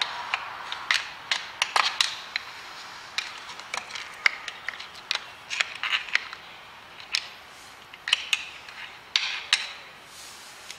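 Screwdriver clicking and scraping against the gears inside a Hobart A200 mixer's greasy gearbox, in irregular sharp clicks, as it pries at a broken drive gear that is stuck in place.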